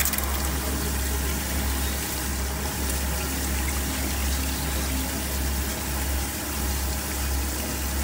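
Meritech CleanTech ELF-C automatic hand-washing machine running its wash cycle: a steady rush of water spraying onto hands inside its cylinders, over a constant low hum from the machine.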